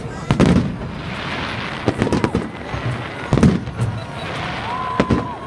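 Large aerial fireworks display: shells bursting with a series of deep booms, about one every second or so, with crackling from the stars between them.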